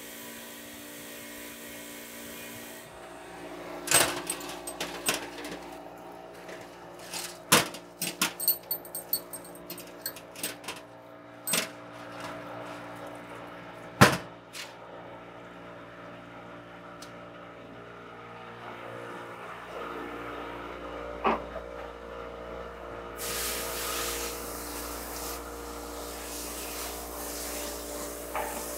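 A bench grinder's wire wheel running against a valve, a steady whine that stops about three seconds in. It is followed by a run of sharp metal knocks and clinks, the loudest about halfway through, and later a hiss lasting about two seconds.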